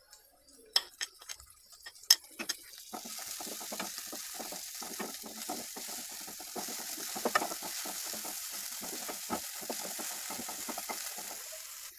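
Chopped onion, tomato and green chilli frying in oil in a nonstick pan, sizzling as a wooden spatula stirs and scrapes them. A few light clicks come in the first seconds; the steady sizzle and the stirring strokes begin about three seconds in.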